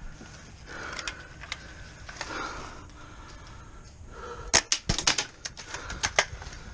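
Airsoft guns firing: scattered sharp cracks, then a quick burst of about six shots in half a second roughly four and a half seconds in, with more single cracks after it.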